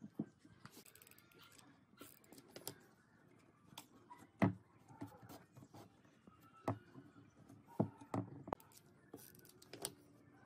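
Scattered light knocks and clacks of thin pine boards and slats being handled and fitted into a wooden lamp frame on a workbench, the loudest knock about four and a half seconds in.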